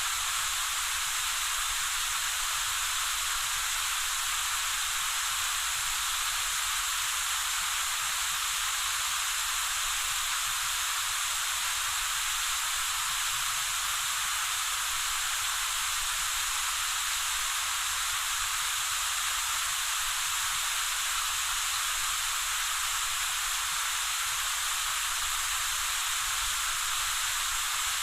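Waterfall: a steady, even rush of falling water, a bright hiss with little deep rumble.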